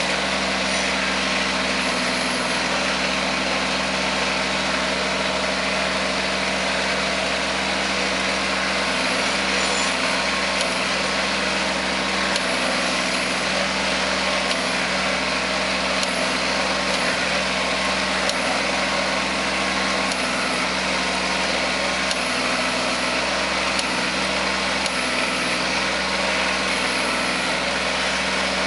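Kubota compact tractor's diesel engine running steadily as it pulls a rear-mounted ridger through soil between sugarcane rows, earthing up.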